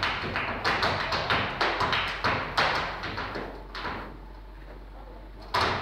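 Flamenco footwork (zapateado): a dancer's shoes striking the stage floor in quick, uneven rhythmic taps and stamps. The strikes stop about four seconds in, then one hard stamp comes near the end.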